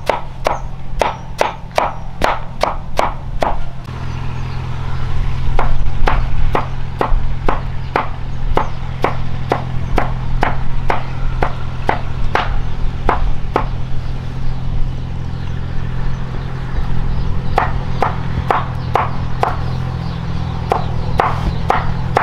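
Cleaver chopping pale, fibrous plant material on a wooden board. The chops come in steady runs, about three a second at the start and near the end and about two a second in the middle, with a pause of a few seconds between the middle and closing runs.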